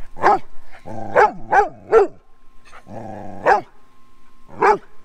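Dog barking: about six short, sharp barks, three of them in quick succession about a second in. Lower, drawn-out sounds come just before two of the runs of barks.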